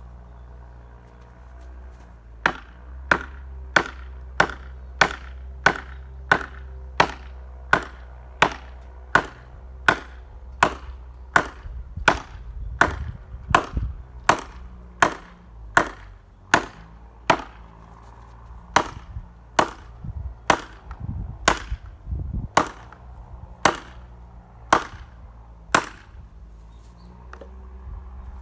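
Axe chopping firewood: a long, even run of sharp strikes on wood, about three every two seconds. The strikes start a couple of seconds in and stop shortly before the end.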